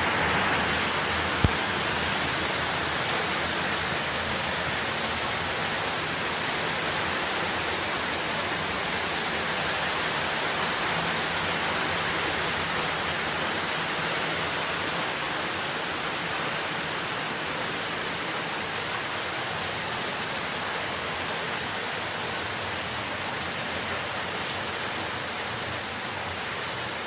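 Steady rainfall, a dense even hiss of falling rain that eases very slightly over time. A single sharp click about one and a half seconds in.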